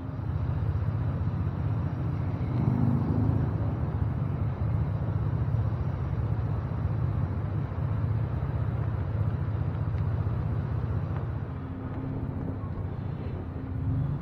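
A car driving, with a steady low engine and road rumble.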